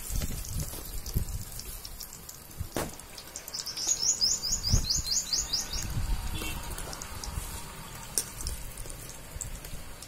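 A bird calls a quick run of about ten rising chirps, about four seconds in, over the steady hiss of oil frying in an open pan. A few low thumps and clicks come in between.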